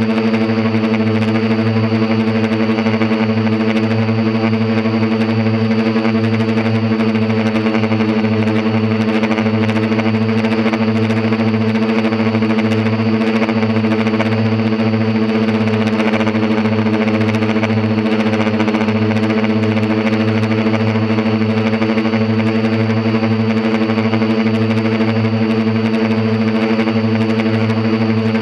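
Quadcopter's electric motors and propellers humming steadily at one constant pitch, heard close up from a camera mounted on the craft, with a faint high whine above the hum.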